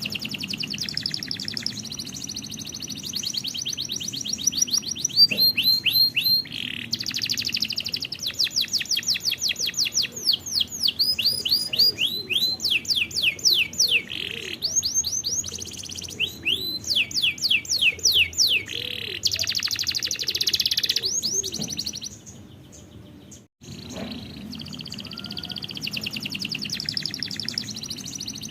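Domestic canary singing: fast rolling trills and runs of repeated down-slurred whistled notes, changing phrase every second or two. The song breaks off briefly about 22 seconds in, then resumes with a fast trill.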